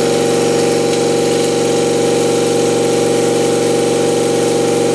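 CNC mill's face cutter surfacing the deck of a Honda B18 aluminium engine block under flood coolant. It makes a loud, steady whine of several fixed pitches over an even hiss.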